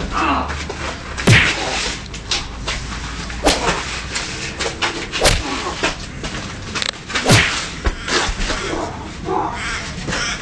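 Dubbed-in punch sound effects: four loud, sharp hits about two seconds apart, with softer clicks between them.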